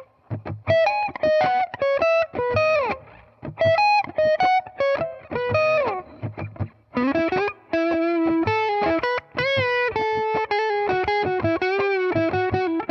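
Distorted electric guitar played through kit-built BYOC effects pedals. It plays single-note lead lines with string bends that slide up and drop back, held notes with vibrato in the second half, and short choppy strums between the phrases.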